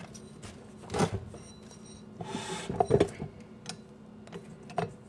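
Hands pulling soft bread dough out of a tipped stainless-steel bowl on a wooden board: a few dull knocks, about a second in, around three seconds and near the end, with a brief scraping rustle just before the second knock, over a faint steady hum.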